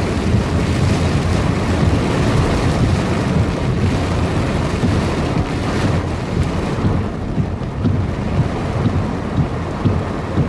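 Heavy thunderstorm downpour: a dense hiss of rain over a deep, continuous rumble. The high hiss of the rain eases about seven seconds in, leaving the low rumble with uneven bumps.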